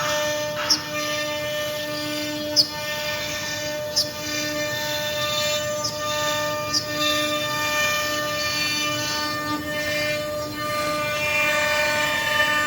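CNC router spindle running with a steady high whine, its tone wavering slightly in strength as it cuts, with a few sharp ticks at intervals.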